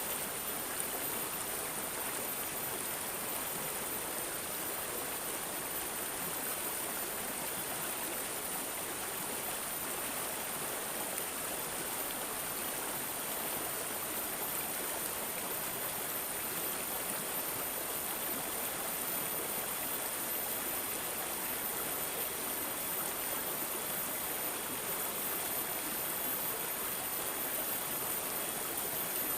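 Water gurgling and babbling steadily, like a small stream.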